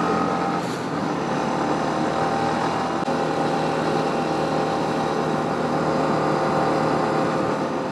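Motorcycle engine running steadily at an even speed while riding, with wind and road noise.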